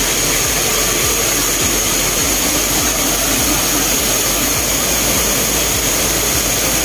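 Steady rushing of a wide, multi-tiered waterfall, Tinuy-an Falls, pouring over its rock ledges.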